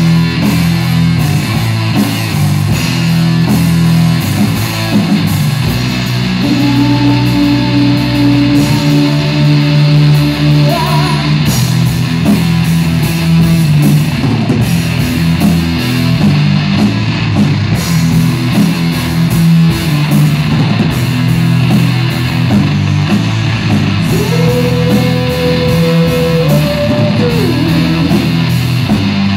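Rock band playing live: electric guitar, electric bass and drum kit, loud and continuous, with long held notes about a quarter of the way in and again near the end.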